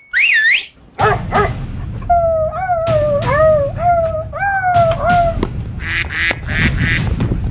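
A dog whining and yipping excitedly in a rapid run of short cries, each falling in pitch, about two a second. Harsher, noisier calls follow near the end.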